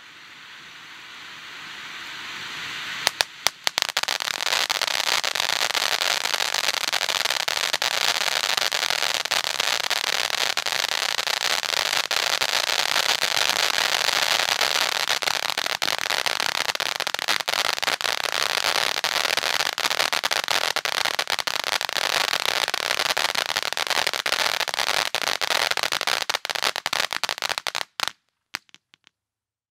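Red Rhino 'Twilight Fright' ground fountain firework: a rushing hiss of sparks that grows louder over the first three seconds, a few sharp cracks, then a loud, dense crackling that holds steady for about 24 seconds. It cuts off suddenly near the end, followed by one or two last pops.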